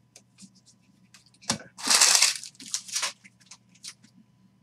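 Stack of trading cards being handled: a sharp tap about a second and a half in, a loud scraping rustle of card against card about two seconds in, and a few shorter rustles after it.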